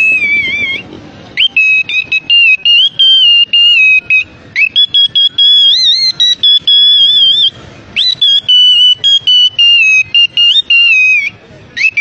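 Parrot whistling: a loud, high, clear whistle held on steady notes that step and glide up and down in a tune-like string, broken by short pauses.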